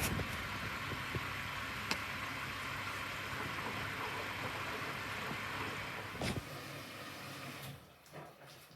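Front-loading washing machine running: a steady hum with a hiss, with a couple of light clicks. It cuts off abruptly near the end.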